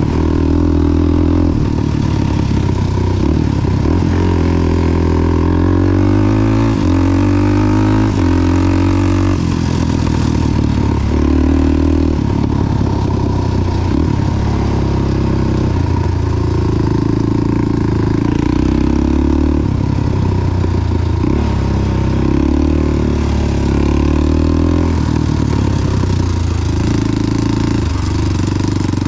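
Big-bored Honda 400EX quad's single-cylinder four-stroke engine running while riding a trail, its pitch rising and falling repeatedly with the throttle.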